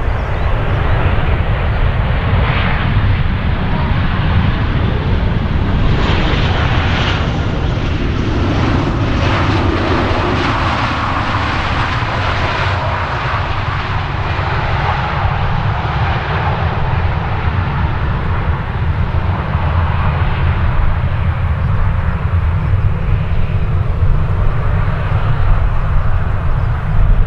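Boeing 737-800 airliner's CFM56-7B jet engines during the landing roll, spoilers up: a loud, steady rush of engine noise that is strongest as the plane goes past about midway, with a whine sliding lower in pitch as it moves away.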